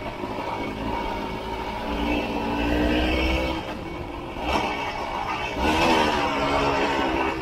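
Honda CRM250's two-stroke single-cylinder engine under way, its pitch rising and falling with the throttle. It is held fairly steady a couple of seconds in, eases off, then opens up loudest near the end.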